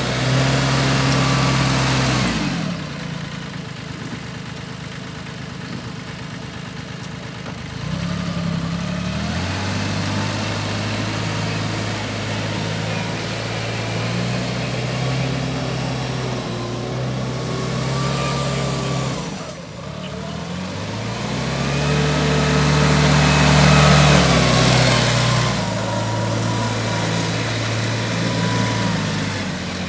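Solis compact tractor's small diesel engine running as the tractor is driven around, its engine speed rising and falling. It runs fast for the first couple of seconds, drops to a lower speed, picks up again about eight seconds in, and is at its loudest around twenty-four seconds before easing back.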